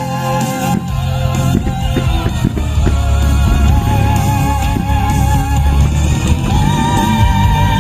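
Rock-style music with drums, guitar and a sustained, wavering melody line.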